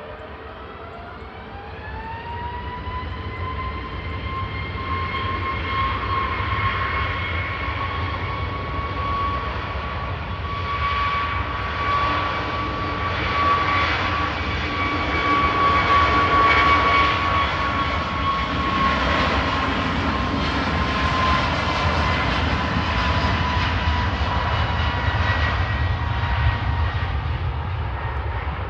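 Jet engines of an AirAsia airliner spooling up to takeoff thrust: a whine rises in pitch over the first few seconds and settles into a steady high whine, while the rumble of the engines grows louder, peaks around the middle and eases a little near the end.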